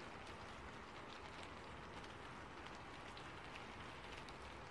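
Faint, steady rain: an even hiss with many small scattered drop ticks.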